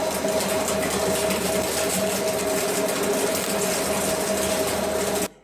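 Industrial shredder grinding up smartphones, USB sticks, backup tapes and discs: a dense, steady crunching over a constant hum, which cuts off abruptly near the end.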